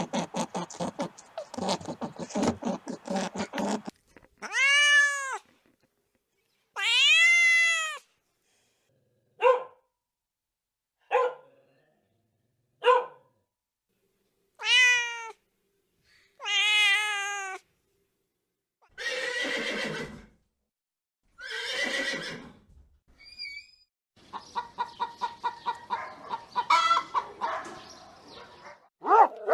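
Cats meowing: a series of separate meows, some long with a pitch that rises and falls, others short. It opens with a rapid pulsing run of calls, and rougher, noisier cries and a long pulsing passage come near the end.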